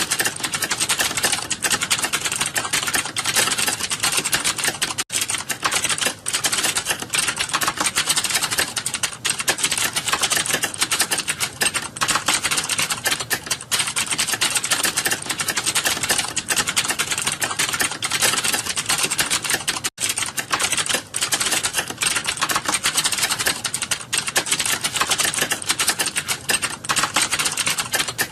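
Fast, continuous typing on a computer keyboard: a dense, steady stream of key clicks during a timed typing test, with two brief breaks.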